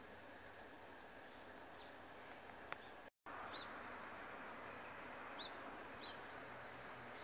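Eurasian tree sparrows giving a few short, high chirps, spaced a second or two apart, over a faint steady background hiss. The sound drops out for a moment about three seconds in.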